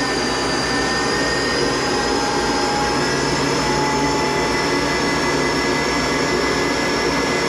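Monarch 10EE toolroom lathe, driven by a 5 hp thyratron vacuum-tube variable-speed drive, running with its spindle at high speed: a steady whine made of several high tones over an even mechanical hum, as it warms up and splashes oil through the headstock and gearbox.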